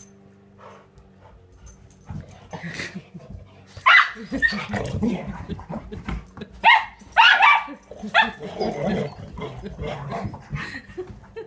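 Dogs barking: a few sharp barks about four seconds in and a louder cluster around seven to eight seconds in, after a quieter start.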